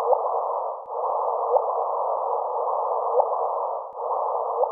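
A gravitational-wave sonification from colliding black holes: a band of hiss with a short rising chirp repeating about every one and a half seconds.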